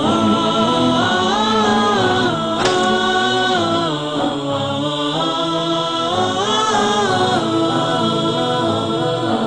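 A solo voice chanting melodically, with long, ornamented notes that glide up and down.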